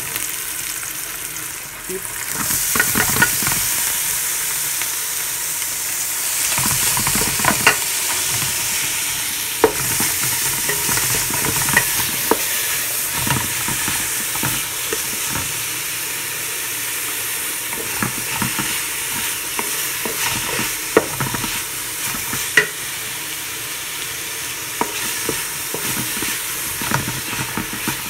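Onion, garlic and ground meat sizzling in hot oil in a metal pot, stirred with a wooden spatula whose scrapes and knocks against the pot sound as scattered sharp clicks over the steady sizzle. The sizzle swells about two seconds in.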